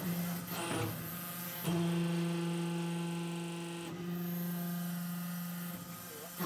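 Compressed-air blow gun hissing in bursts, loudest from about a second and a half in to about four seconds in. Under it runs the steady hum of the soil interlocking brick machine's motor.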